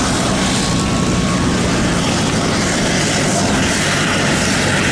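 Piston engine and propeller of a vintage single-engine propeller aircraft running steadily as it taxis past, with a stronger high hiss coming up near the end.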